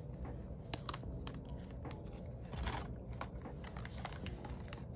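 Paper money and envelopes being handled: rustling and crinkling with scattered small sharp clicks.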